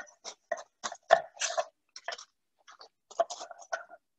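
Kitchen utensils and food being handled at a work counter: a run of short, irregular clicks and scrapes with brief silences between them.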